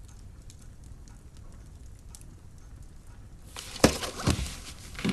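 Quiet room tone, then about three and a half seconds in a rustle of clothing and a book being shut and put down, with a few sharp knocks, the first the loudest.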